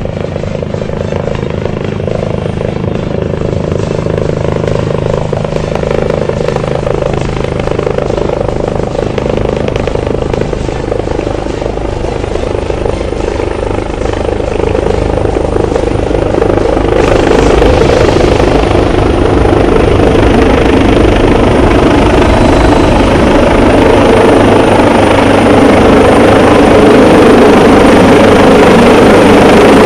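Aircraft engine noise overhead, growing steadily louder and broadening into a fuller roar from a little past halfway.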